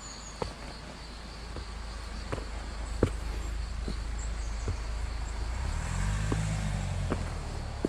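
Footsteps at a steady walking pace while a motor vehicle passes, its low engine rumble building and loudest about six to seven seconds in, over a steady high buzz of insects.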